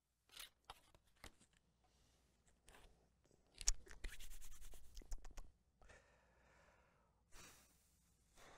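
Faint tabletop handling sounds while sandwich makings are laid out: a few separate clicks and taps, then a denser stretch of scratchy rubbing and crinkling from about three and a half to five and a half seconds in, followed by softer rustles.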